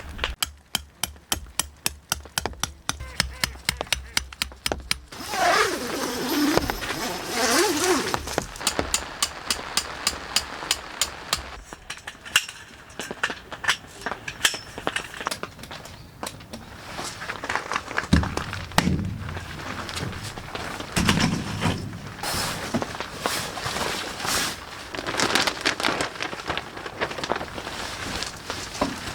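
Tent pegs being hammered into the ground while a tent is pitched: runs of sharp knocks, a couple a second, with short pauses between them.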